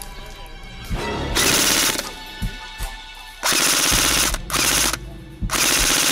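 Airsoft gun firing four short full-auto bursts of rapid shots. Its BBs are striking the dirt mound just in front of the shooter.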